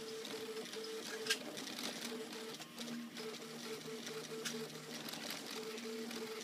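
RepRap Mendel 3D printer running a print: its stepper motors whine in short steady tones that keep stopping and changing pitch as the print head darts back and forth. Two sharp clicks stand out, about a second in and again about four and a half seconds in.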